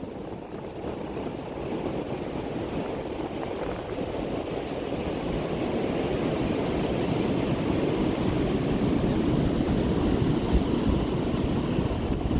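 Ocean surf breaking and washing up the beach, with wind buffeting the microphone; the rush of the waves grows louder toward the second half.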